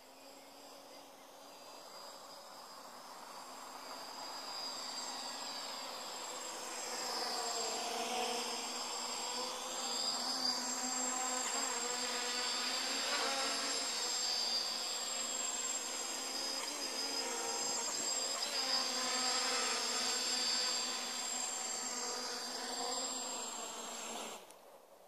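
A Cheerson CX-20 quadcopter's motors and propellers buzzing in flight, with a pitch that wavers up and down. The buzz grows louder over the first several seconds as the quadcopter comes close, stays loud, then stops abruptly near the end.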